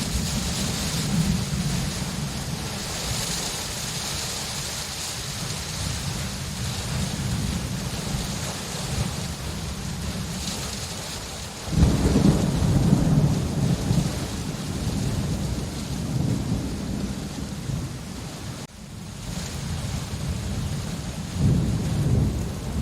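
Steady rain falling, with thunder rumbling low underneath; a louder roll of thunder breaks in suddenly about halfway through and another swells near the end.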